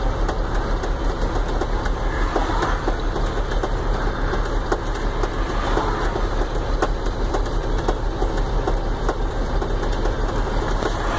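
Truck engine idling, heard from inside the cab as a steady low rumble with faint scattered clicks.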